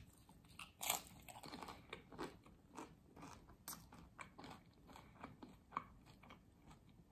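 A person biting and chewing a crispy taco in a fried corn tortilla, with many small irregular crunches, the loudest about a second in.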